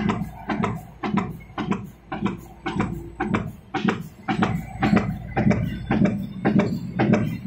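Paper roll die punching machine running, its die press striking in an even rhythm of about three sharp knocks a second over a steady machine hum as it punches paper cone blanks.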